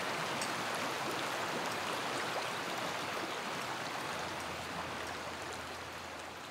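Shallow stony river flowing over rocks, a steady rushing water sound, slowly fading out near the end.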